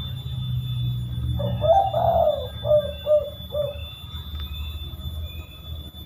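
Spotted dove (tekukur) cooing: a fuller coo phrase about a second and a half in, then three short 'kuk' notes in quick succession, the rare 'kuk 3x' call.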